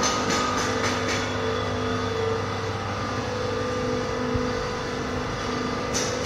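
Workshop machinery running with a steady hum and whine, with a quick run of rhythmic knocks in the first second and again near the end.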